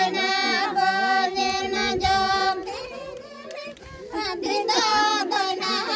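A group of women singing a Santali Sohrai folk song together, with long held notes; the singing thins out briefly past the middle and comes back full about four seconds in.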